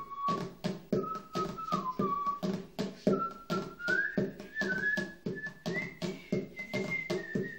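A man whistling a melody that steps up and down, while drumming a steady beat with his hands on an upturned plastic bowl, about four strikes a second.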